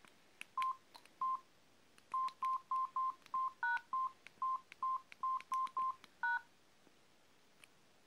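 Samsung SGH-D500 keypad tones: short single-pitch beeps as keys are pressed to scroll through menus, about sixteen in all, some in quick runs, each with a faint key click. Two of the beeps are a higher two-note tone, and the beeping stops about six and a half seconds in.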